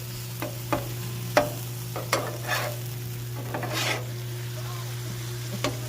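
Bacon sizzling on a Blackstone flat-top griddle while a metal spatula clicks and scrapes across the steel plate, with a few sharp taps and two longer scrapes, over a steady low hum.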